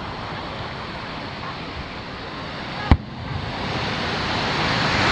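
An aerial firework shell bursts with one sharp boom about three seconds in. Under it runs a steady wash of surf on the beach that swells slightly toward the end.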